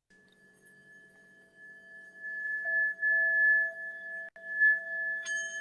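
Tibetan singing bowl ringing in a long, steady tone that swells louder and wavers after a couple of seconds. A second, higher ring comes in suddenly near the end.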